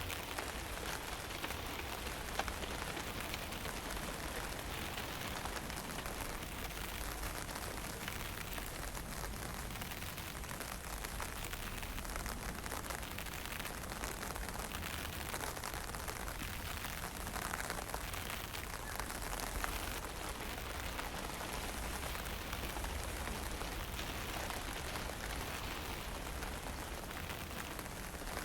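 Steady wind and fine drizzle: a soft, even hiss of light rain over a low rumble of wind buffeting the microphone.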